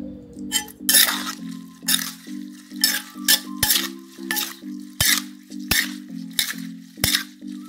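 Metal spoon scraping and tossing cut long beans and tomato around a mortar, mixing the salad in quick strokes about twice a second.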